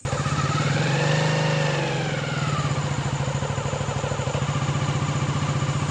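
Small single-cylinder commuter motorcycle engine running as the bike rides off, its pitch rising and then easing back over the first two or three seconds before settling into a steady run.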